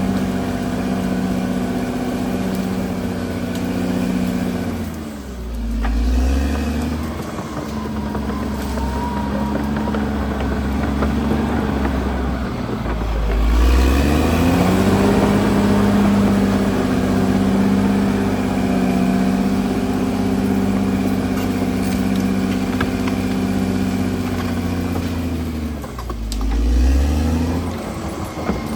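CAT D6R XL bulldozer's diesel engine running. Its revs dip and pick back up three times: about five seconds in, around thirteen seconds, and near the end.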